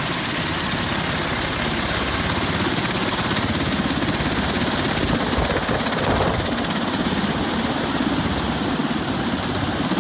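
Bell Boeing MV-22 Osprey tiltrotor running on the ground with its nacelles upright, its twin turboshaft engines and proprotors making a steady loud noise with a fast pulsing from the blades.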